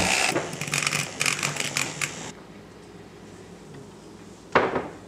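Espresso machine steam wand frothing milk in a stainless steel pitcher, hissing and sputtering in uneven bursts for about two seconds, then stopping. After that the sound is quieter, with one sharp knock about four and a half seconds in.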